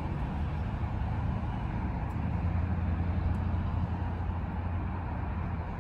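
Steady low engine rumble of a motor vehicle, heard from inside a car cabin. It swells a little around the middle.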